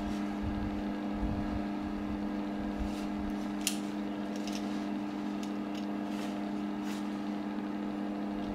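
Steady electrical hum from a switched-on PS-450 desktop impulse sealer, whose heavy copper-wound transformer drives the sealing band. A few faint clicks come in the middle as a digital caliper is closed on a strip of plastic film.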